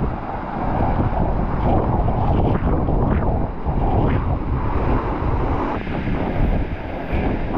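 Steady rush of water from a waterfall, mixed with wind buffeting the microphone.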